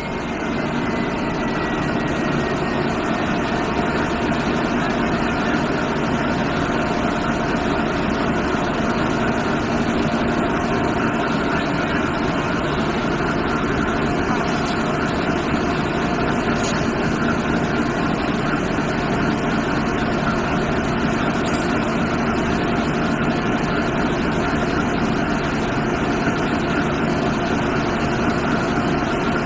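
Large ship's engine, just started on high-pressure compressed air, running steadily at idle.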